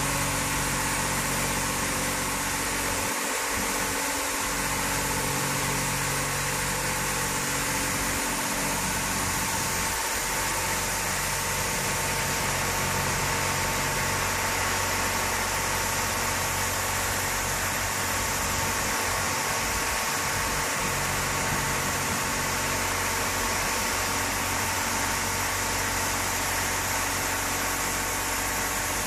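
Kewande touchless automatic car wash machine running through a wash cycle: a steady hiss of high-pressure water jets spraying the car, over the even hum of the machine's pump motor.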